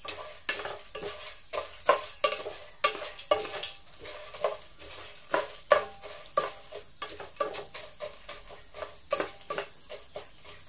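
Wooden spatula stirring unpopped popcorn kernels in hot oil in a square nonstick pan: irregular scraping and rattling strokes, several a second. The kernels are heating but have not started to pop yet.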